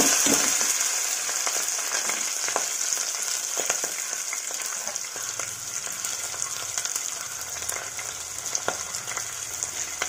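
Green chillies and onion sizzling in hot oil with a tempering of cumin and mustard seeds: a steady hiss with scattered small pops and crackles, slowly getting quieter.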